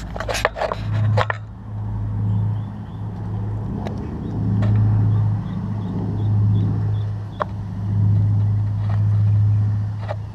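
The B-29 Superfortress's four radial engines give a deep, steady drone that swells and fades in waves as the bomber comes in to land. A cluster of sharp clicks comes in the first second or so.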